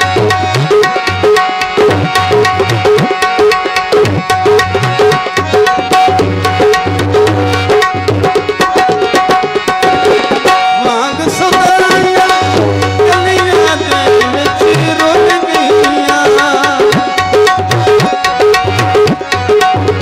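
Instrumental interlude of a live folk song: hand drums keep a fast, even rhythm under a steady held note and a wavering melody line, with a brief break about eleven seconds in.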